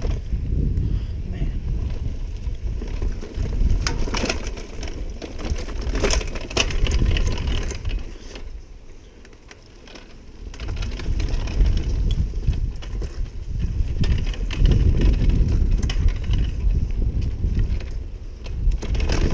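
Mountain bike riding fast down a dirt trail: a steady rumble of wind on the microphone and tyres on the ground, with sharp knocks and rattles from the bike over bumps. It eases off briefly about halfway through, then picks up again.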